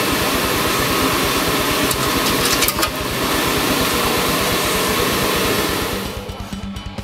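Coffee roaster's cooling tray running: its fan blowing and its mixing arms stirring freshly roasted coffee beans, a steady rushing noise with a fast low rumble and a few sharp clicks between two and three seconds in. Near the end it fades and guitar music comes in.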